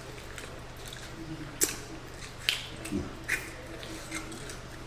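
Close-up eating sounds: chewing and wet lip smacks, with several sharp clicks scattered through.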